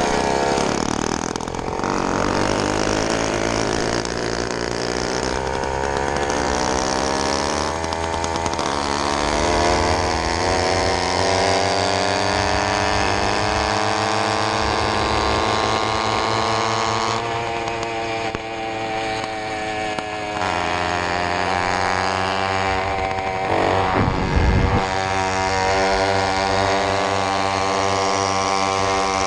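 80cc two-stroke engine of a motorized bicycle running while riding, its pitch climbing as it gathers speed and dropping several times as the throttle is eased off. A brief low rumble stands out about three-quarters of the way through.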